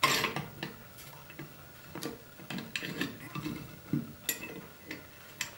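Irregular clicks and light clattering from the blade-height adjustment of a small hobby table saw, as the blade is lowered and raised by hand. The saw's motor is not running.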